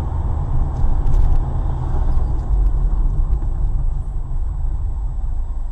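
Car cabin road and engine noise picked up by a dashcam's microphone while driving: a loud, steady low rumble, with a few faint clicks about a second in.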